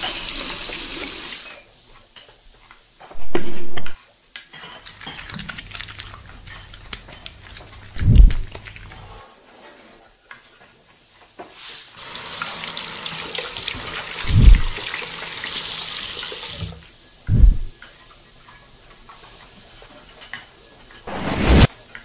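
Tap water running onto hands over a stainless-steel sink, followed by a string of separate kitchen sounds: a long hissing stretch in the middle and four short deep thumps spread through.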